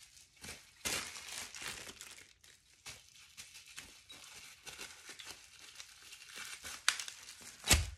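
Clear plastic wrapping crinkling and crackling irregularly as it is handled and pulled off a small item, with a sharp knock just before the end.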